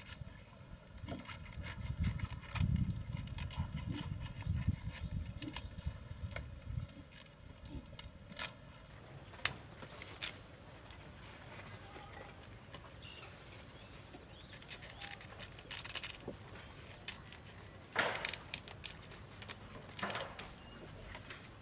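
Rabbits crunching cabbage leaves and shuffling about on the floor of a wooden hutch, with dense clicks and low thuds. It then goes quieter, with cabbage leaves being torn and rustled by hand, in two louder rustles near the end.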